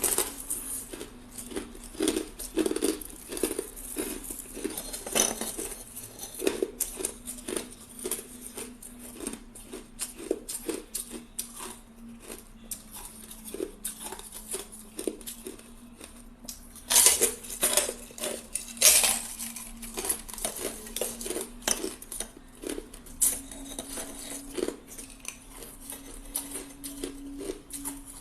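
Hard ice being bitten and chewed close to the microphone: a steady run of sharp crunches and cracks, with two louder crunching bites a little past the middle. A faint steady hum sits underneath.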